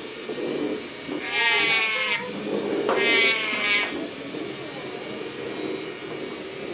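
Small power sanding tool grinding the wooden pinewood derby car body, whining in two roughly one-second bursts as it is pressed into the wood, the pitch dipping under load, then running more quietly.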